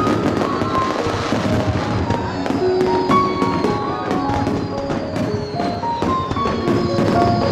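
Fireworks launching and bursting in a run of sharp bangs, more frequent after about two seconds, over music with a melody of held notes.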